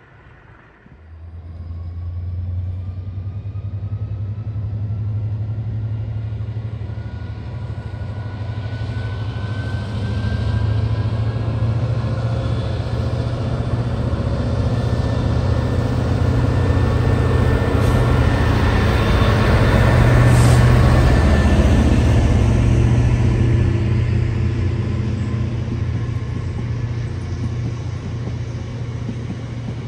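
Heavy freight train passing close by: a locomotive's engine drone with a rising whine as it approaches, then the long rake of loaded hopper wagons running past on the rails, loudest about two-thirds through and slowly easing toward the end.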